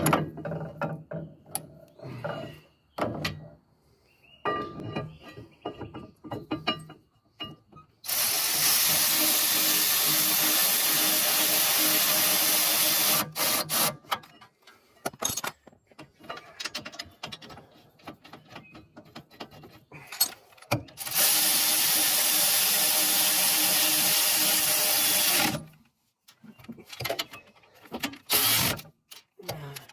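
A cordless power tool runs twice for about five seconds each, driving the caliper bracket bolts home, with metal clinks and knocks of tools and brake parts before, between and after.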